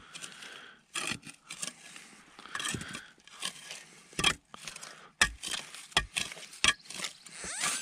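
Hand digging tool scraping and knocking against rocks and packed soil in an irregular series of sharp strikes, prying a buried metal-detector target loose from a crack between stones.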